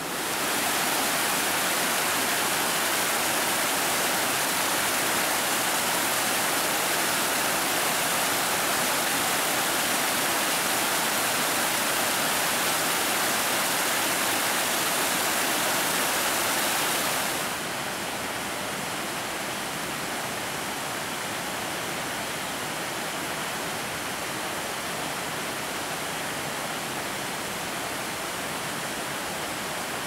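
Mountain stream cascading over rocks: a steady rush of water. A little over halfway through it drops abruptly to a quieter, duller rush.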